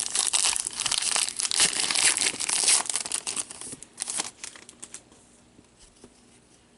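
A hockey card pack wrapper being torn open and crinkled for about three seconds, followed by a few lighter rustles and clicks.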